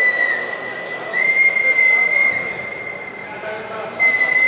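Referee's whistle blown in long, steady high blasts: one ending just after the start, another about a second in lasting over a second, and a third starting near the end.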